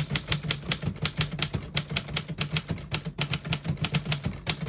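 1934 Corona Silent portable typewriter being typed on: a quick, even run of key strikes, about six a second. The strikes are a little more muffled than an average typewriter's.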